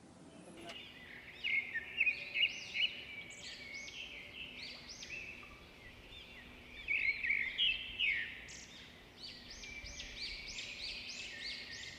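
Birds chirping and singing, many short high notes repeating in quick runs, starting about half a second in.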